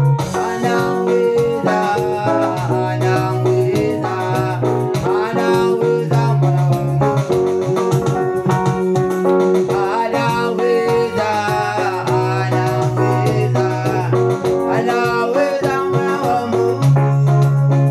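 Upbeat music with a sustained bass line, instruments and singing, playing continuously.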